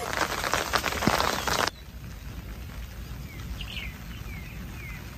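Rain pattering on an umbrella and raincoat, which cuts off abruptly after about a second and a half. Then a quieter rainy outdoor background in which a bird gives a series of short falling chirps.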